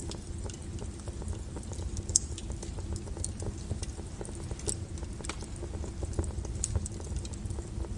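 Wood fire burning with a steady low rumble, crackling irregularly, with one sharp pop about two seconds in.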